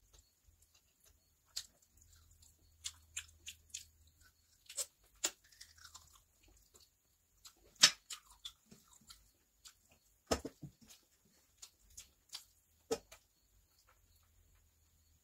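Close-miked eating sounds: scattered wet mouth clicks and chewing, with fingers gathering biryani rice on a steel plate. The sharpest clicks come about 8 and 10 seconds in.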